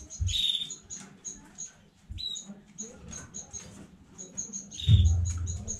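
Canary chirping: many short, high calls in quick succession, with three louder bursts, each carrying a dull thump, about a quarter second in, two seconds in and loudest about five seconds in.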